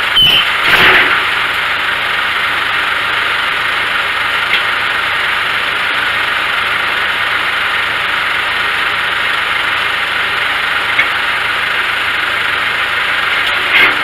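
An engine runs steadily at idle throughout. In the first second a few knocks and a brief squeak come from a cant hook levering a large pine log on the sawmill carriage.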